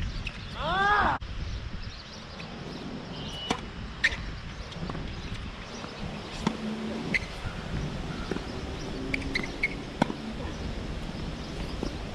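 Tennis balls struck by rackets and bouncing on a hard court during a rally: sharp single pops a few seconds apart, over wind noise on the microphone. About a second in, a short loud sound rises and falls in pitch.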